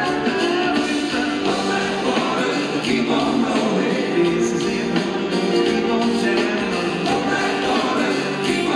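Live rock band playing, with a strummed acoustic guitar and electric bass under sung lead vocals and harmony voices.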